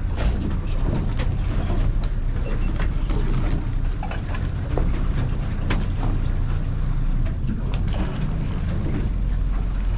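Boat motor running steadily at trolling speed, a low rumble, with a few sharp clicks over it.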